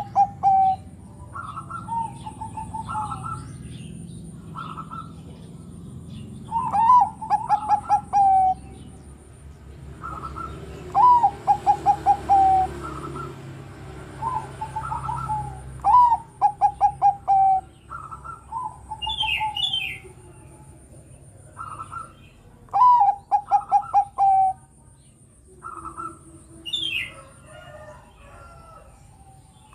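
Bangkok-type zebra dove (perkutut) cooing its song: a rising opening note followed by a quick run of five or six short staccato coos, the phrase repeated every several seconds. A few higher chirps from small birds come in twice in the second half.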